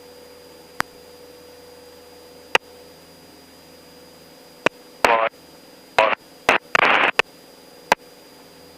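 Steady hiss and hum of a light aircraft's headset intercom or radio audio feed, broken by sharp clicks and, about five seconds in, a few short choppy bursts of garbled, broken-up voice-like sound.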